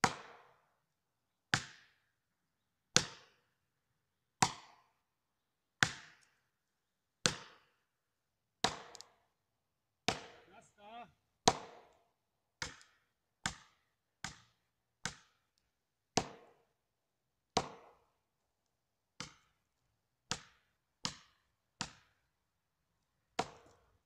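Felling wedges being driven into the cut of a tree that leans back against the felling direction: about twenty sharp blows, roughly one every second and a half, coming quicker in the middle and slower again near the end. The wedging lifts the tree over against its lean.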